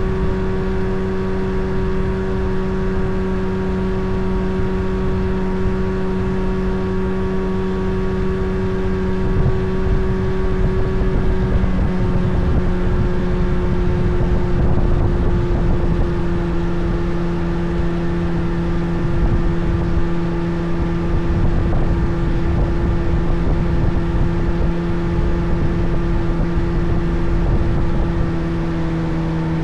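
A boat's motor running steadily under way, its pitch easing slightly lower about halfway through and again near the end, over a low rushing noise.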